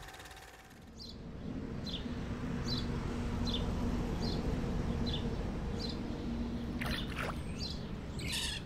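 A bird calling a short high chirp over and over, about one every 0.8 seconds, over a low steady rumble of outdoor ambience. Louder, rougher calls come near the end.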